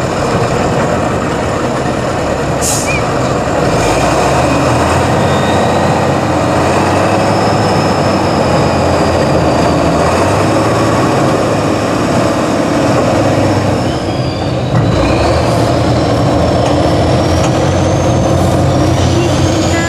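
Tatra 815 8x8 truck's diesel engine labouring under load as it crawls over rough ground, with the revs stepping up about four seconds in and again near the end. A thin high whine rises and falls in pitch over the second half.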